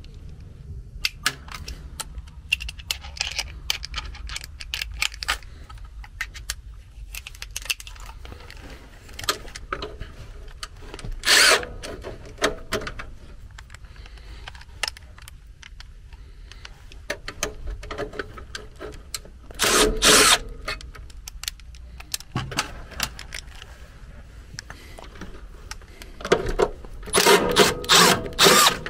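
Clicks, taps and rattles of tools and sheet-metal panels while a furnace control board is unscrewed, broken by short whirring bursts of a power driver running screws out: one about 11 seconds in, a longer one about 20 seconds in, and several in quick succession near the end.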